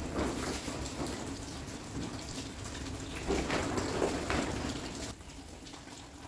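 Rainwater dripping and running off the roof and gutter, splashing down around a bucket that is collecting it. The sound swells a few times in the middle and gets a little quieter about five seconds in.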